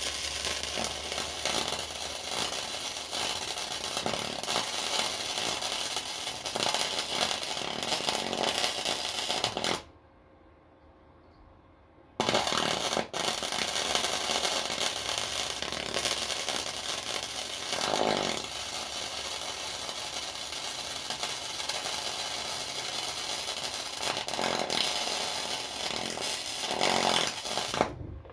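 Flux-core wire-feed welding arc laying a bead on a steel mower deck. One run lasts about ten seconds, then there is a two-second stop, then a second run goes to the end, broken briefly just after it restarts.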